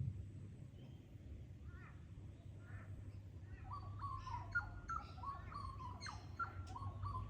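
Birds calling in Australian bush: short repeated chirps, then about halfway a busier run of quick whistled notes and chirps, over a steady low hum.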